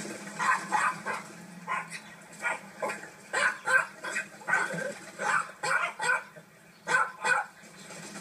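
A small dog barking over and over in short, sharp yaps, roughly two a second and often in pairs. A steady low hum runs underneath.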